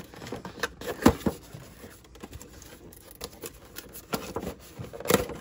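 Cardboard box flap being pried open on an action-figure package with a clear plastic window: scattered rustles, scrapes and crinkles of cardboard and plastic, with a sharp crackle about a second in and another near the end.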